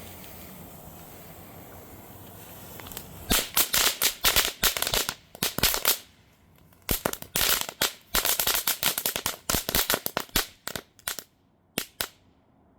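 Dominator Coyote and Bobcat Repellent firework: a steady hiss for about three seconds, then a long, rapid string of sharp firecracker bangs. The bangs pause briefly about halfway, resume, and thin out to a few last pops near the end.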